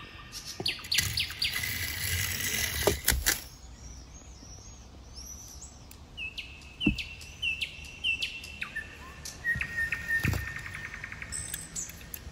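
Small birds chirping, with repeated short falling notes and a quick trill near the ten-second mark. About one to three seconds in there is a burst of rustling with a few sharp clicks.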